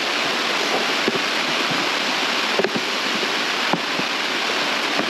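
A steady hiss of background noise with a few light clicks and taps from the black plastic heater box being handled.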